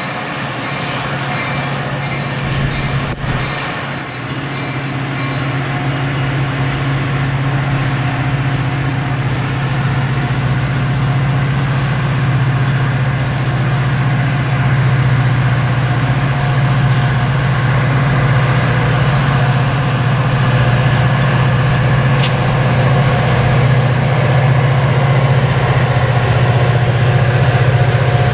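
Train passing, its diesel locomotive running with a steady low drone over a broad rumble that grows slowly louder, with a sharp click about three seconds in.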